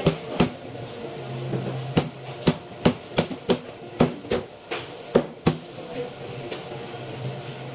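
Heavy knife chopping into a large red grouper's head on a plastic cutting board: about a dozen sharp strikes at uneven intervals, petering out about five and a half seconds in.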